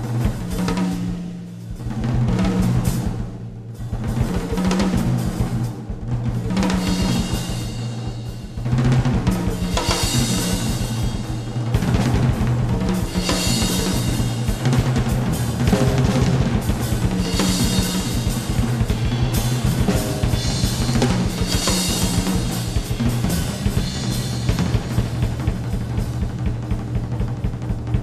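Live jazz-fusion band playing, with a busy drum kit to the fore (bass drum, snare and washing cymbals) over a steady bass line. It is heard from a cassette tape recording of an FM radio broadcast.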